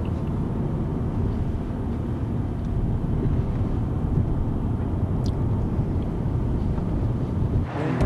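Steady low rumble of a car driving, heard from inside the cabin: engine and road noise. It cuts off shortly before the end.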